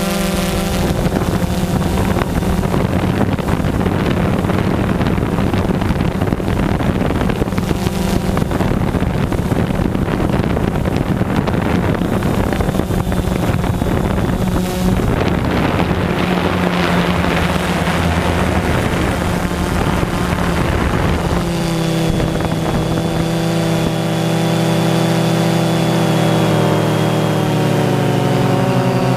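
Camera drone's propellers and motors humming steadily, with heavy wind noise on the microphone for most of the time. About two-thirds of the way through the wind eases and the hum's tones come through clearer, dipping slightly in pitch near the end.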